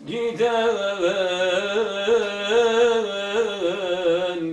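A Turkish ilahi (religious hymn) sung in long, wavering, ornamented notes over a steady held low drone note. It starts suddenly and loudly.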